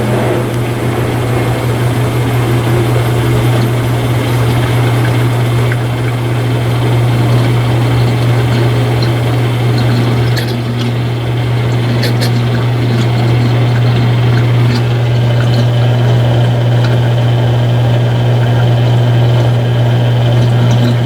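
Mueller Energy 8 kg top-load washing machine draining and spinning at the end of its cycle: a loud, steady machine hum that cuts off suddenly at the very end as the machine stops.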